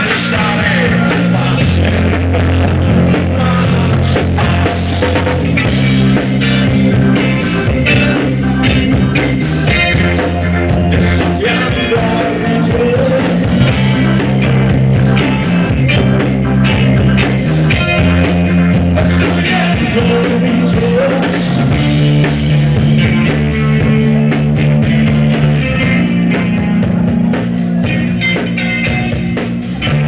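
Live rock band playing loud: drum kit, electric guitar and keyboard over sustained low notes that change every second or two.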